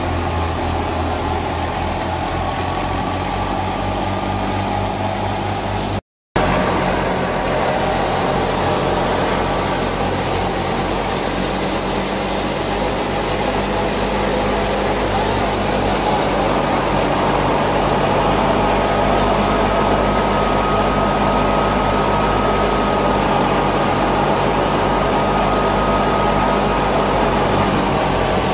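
Old 480 diesel tractor engine running steadily while driving a wheat thresher, the thresher's whirring mixed in with the engine. The sound cuts out for a moment about six seconds in, then carries on.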